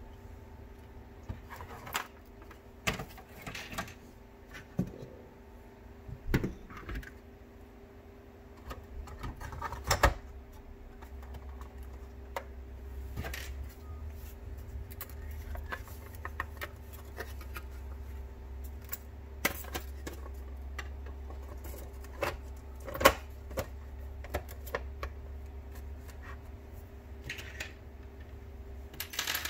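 Plastic parts of a 1997 Ford F-150 instrument cluster being handled and fitted together: scattered clicks, knocks and light taps, with a sharper tap about ten seconds in and another a little past twenty seconds, over a steady low hum.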